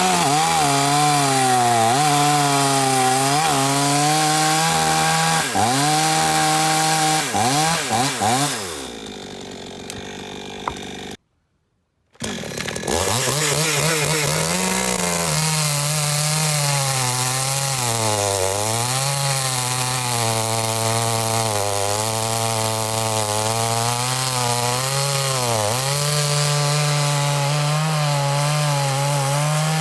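Two-stroke chainsaw that has sat unused for a long time running at high revs, its pitch repeatedly rising and dipping as it works, the owner judging its carburetor out of adjustment and the saw bogging. About nine seconds in it falls away and goes silent for a moment, then runs on with the same rising and dipping pitch.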